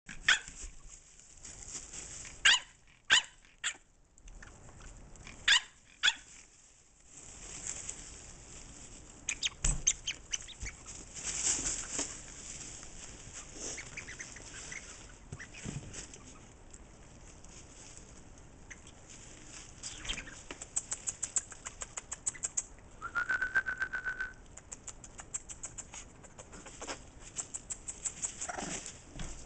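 French bulldog puppies: several short, sharp barks in the first few seconds, paws scrabbling and rustling in wood-shaving bedding, and a toy bird's steady chirping trill lasting about a second, two-thirds of the way through.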